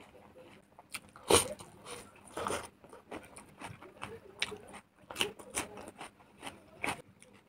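Close-miked eating sounds: chewing, wet mouth smacks and crisp bites, including bites of a raw cucumber slice, with the loudest bite about a second and a half in.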